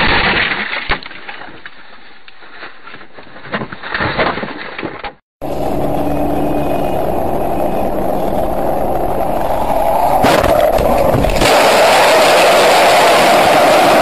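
Cars driving, with road and engine noise. The first few seconds carry scattered knocks. After a sudden cut about five seconds in comes a steady rush of road noise that grows louder near the end.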